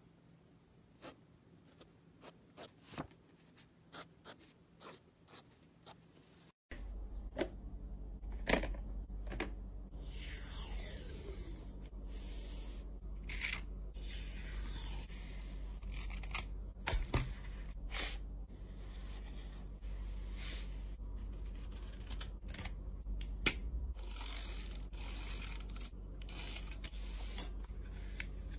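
Close-up sounds of hands working art materials: scattered sharp clicks and scrapes, faint at first, then louder from about seven seconds in over a steady low hum.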